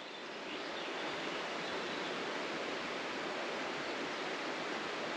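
Steady, even rush of flowing water from a stream.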